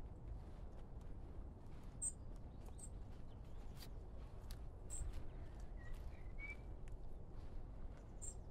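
Footsteps on a countryside path, about two a second, with short high bird chirps now and then and one brief rising bird call in the middle, over a steady low rumble.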